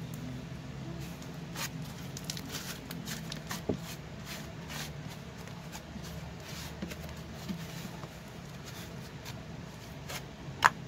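Thick clay-and-cornstarch slime being kneaded, folded and pressed by hand on a table, giving soft squishes and scattered small sticky clicks, with one sharper click near the end.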